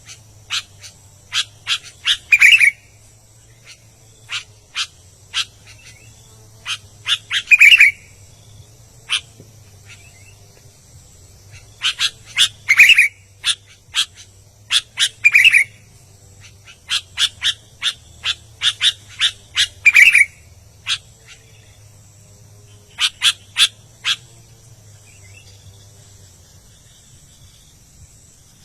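Albino sooty-headed bulbul (kutilang) singing in full voice: quick runs of sharp chirps, each ending in a louder, lower whistled note, repeated every few seconds.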